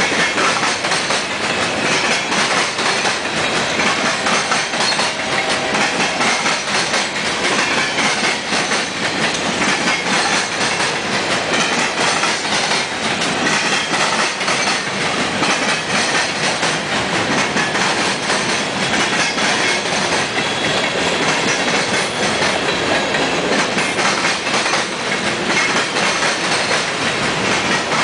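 Freight cars of a Union Pacific manifest train rolling past: a steady, loud rumble and clatter of steel wheels on rail, with a stream of clicks as wheels cross rail joints.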